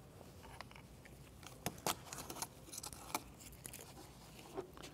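Faint scattered clicks and light rustles from a plastic coolant jug being handled with gloved hands, over quiet room tone.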